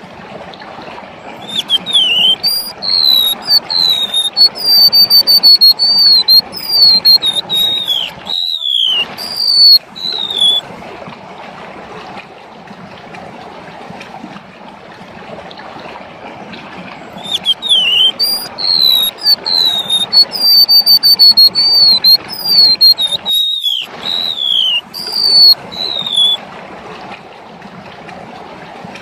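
Golden-bellied gerygone singing: two bouts of high, thin, wavering whistled notes, each about nine seconds long and each cut by a brief dropout. Under them runs a steady rush of running water.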